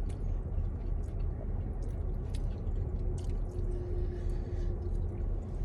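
Close-up eating sounds: chewing and wet, squishy clicks of someone biting into sauced chicken wings, over a steady low rumble inside a car.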